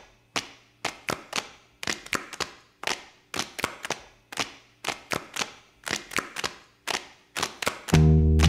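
Sharp, clap-like percussive hits in an uneven, syncopated rhythm, about two to three a second, each with a short ringing tail. Just before the end a music track with a deep, sustained bass comes in.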